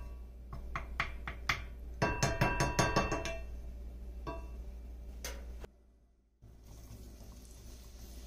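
Wooden spoon tapping and scraping as grease is scooped from a glass jar into a cast-iron skillet: a few single clicks, then a quick run of ringing clinks about two seconds in.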